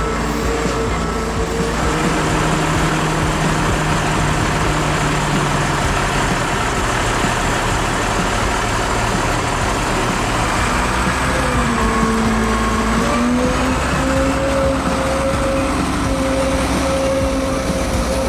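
Snow groomer running steadily, with a low mechanical drone and a clear engine tone; the engine note rises a little about twelve seconds in.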